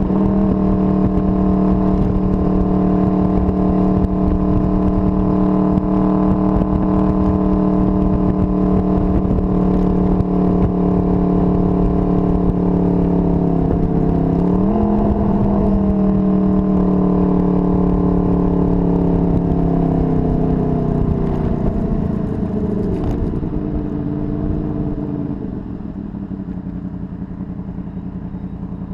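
Honda VFR800's V4 engine running at steady cruising revs, with wind buffeting on the microphone. About halfway the revs change briefly, then they fall steadily as the motorcycle slows, and the sound gets quieter near the end.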